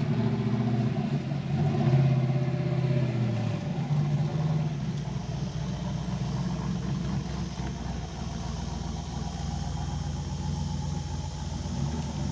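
Off-road race truck's engine revving as it works through rough, rocky ground, the revs rising and falling over the first few seconds, then running more steadily.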